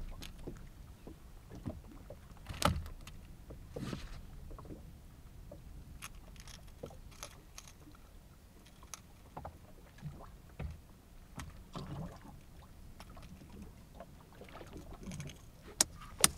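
Scattered knocks and clicks of handling aboard a small fishing boat, over a low steady background of water and wind. The loudest knock comes about three seconds in, with another about a second later.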